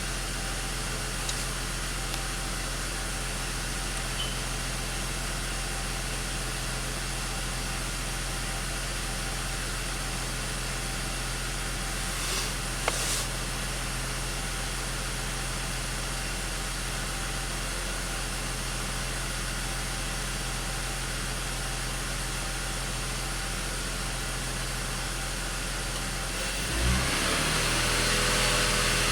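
BMW X5 six-cylinder engine idling steadily when fully warm, with a few faint clicks. Near the end the engine speeds up, the pitch shifts, and it holds at the higher speed, a little louder.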